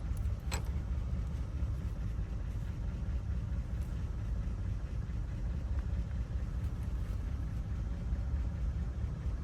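Steady low rumble, with a single light click about half a second in.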